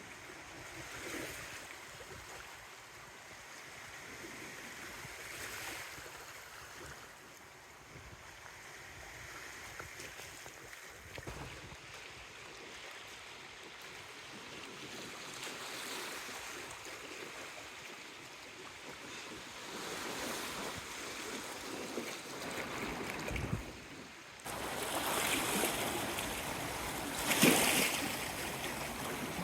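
Strong, gusty wind with the wash of sea water; the gusts grow louder in the last few seconds, loudest near the end.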